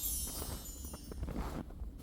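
The tail of a song fading out over the first second or so. Under it runs a steady low wind rumble on the microphone, with a few faint crunches.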